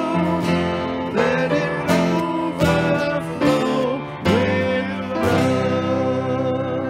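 Acoustic guitar strummed under a sung hymn melody. About five seconds in, the music settles on a held final chord that slowly fades.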